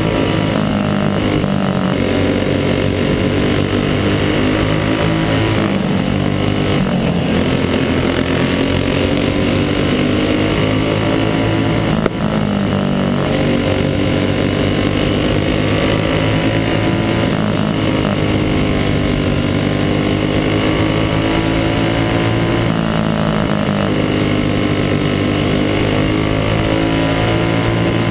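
Racing kart engine heard from on board at full race pace, its pitch rising and falling as the throttle opens on the straights and lifts for the turns, with other karts' engines running close by. A single sharp click about twelve seconds in.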